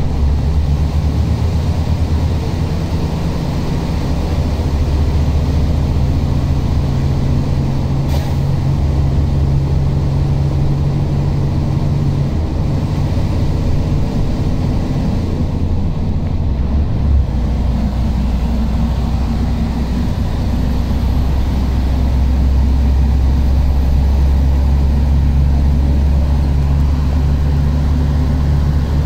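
Engine and road noise of a vehicle in motion, heard from inside it as a steady low rumble, with a single sharp click about eight seconds in.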